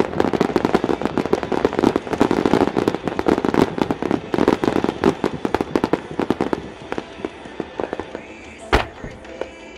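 Fireworks: a dense, rapid crackling of many small sharp pops that thins out after about six seconds, then a single loud bang near the end.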